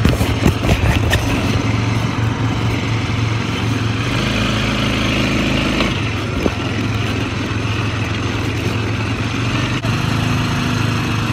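Quad bike (ATV) engine running steadily while riding along a rough dirt trail. Several sharp knocks and rattles come in the first second or so.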